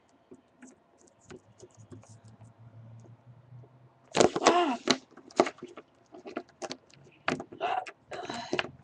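Light clicks and taps, such as small plastic Littlest Pet Shop figures make when handled and set down on a surface, with a sharp cry of "Ah!" about four seconds in.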